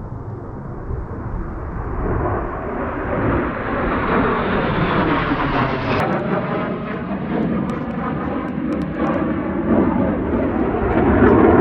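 Fighter jets flying over: a jet roar that builds steadily and is loudest near the end, with a rippling, phasing quality as they pass.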